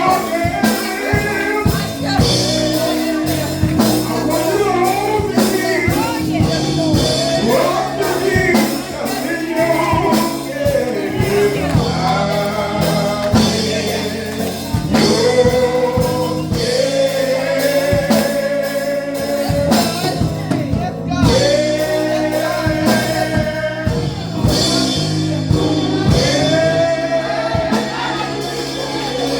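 Live gospel music: singing with a band, with regular drum strokes throughout and long held sung notes in the second half.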